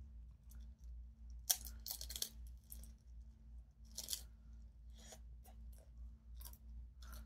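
Bites and chewing of a crisp tostada made on a large lime-flavoured Tostitos tortilla chip, giving a series of sharp crunches, the loudest about one and a half to two and a half seconds in and again about four seconds in. A faint steady hum runs underneath.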